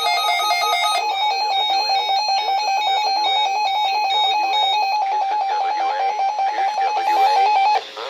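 Emergency Alert System attention tone sounding from several NOAA weather radios at once: a loud, steady high alarm tone with a rapid pulsing warble, cutting off abruptly near the end.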